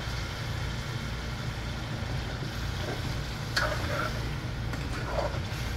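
Spice paste sizzling in a steel pot as taro corms are stirred through it with a metal spoon, with a couple of brief scrapes in the second half. A steady low hum runs underneath.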